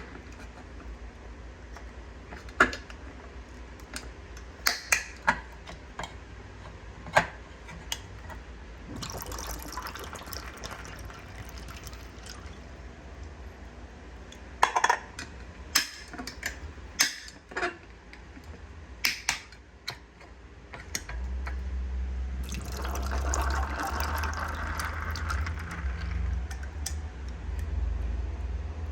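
Drinks being mixed: juice poured into glasses in two longer pours, with scattered sharp clinks of bottles and glasses set down and handled.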